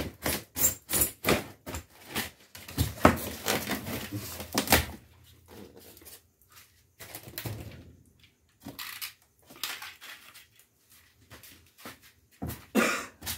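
Styrofoam shipping box being opened by hand: a quick run of scraping and knocking as the taped lid is worked loose and pulled off, followed by scattered rubs and knocks as the packing and contents are handled.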